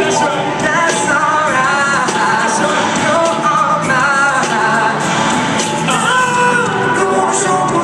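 A live pop band with a lead singer playing through a concert sound system, loud and steady, heard from far back in the audience of a large venue.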